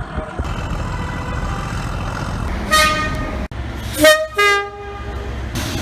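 Train horns over a steady low rumble from the train. A short horn blast comes about three seconds in. After an abrupt cut, a two-tone horn sounds a higher note then a lower one, and another blast begins near the end.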